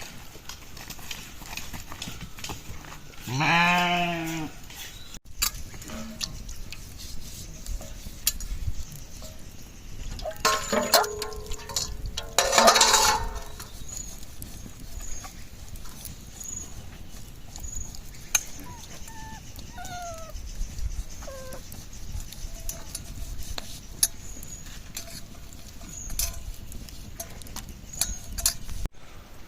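Sheep bleating: one long call about three seconds in, then a louder, harsher call around eleven to thirteen seconds, with scattered small clicks and knocks from the flock in between.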